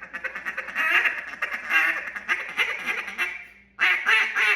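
Mouth-blown duck call imitating a mallard: a fast run of short quacking notes that fades out, then after a brief pause a louder series of evenly spaced quacks starting near the end.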